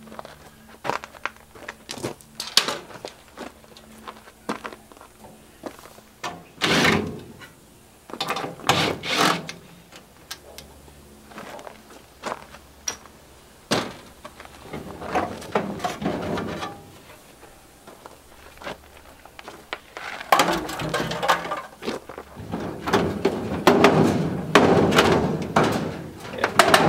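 Sheet-metal panels of a clothes dryer cabinet knocking and clattering as they are pried loose, lifted off and set down: a string of irregular knocks and thunks, with a longer spell of rattling near the end.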